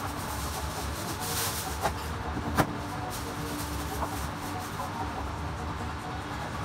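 A Hiroshi Kato Aogami Super gyuto slicing through raw meat and tapping down on a plastic cutting board, a few sharp knocks with the loudest about two and a half seconds in. A steady low machine hum runs underneath.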